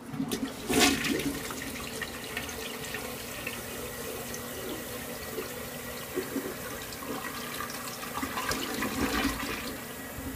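American Standard Plebe toilet flushing: the flush starts suddenly with a loud rush of water about a second in, water swirls steadily down the bowl, and a second louder gurgling surge comes near the end as the bowl drains and the flush dies down.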